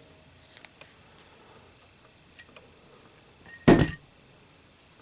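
A Zippo Armor brass lighter in a drop test. A few faint metal clicks lead up to one loud metallic clack with a brief ring, about three and a half seconds in.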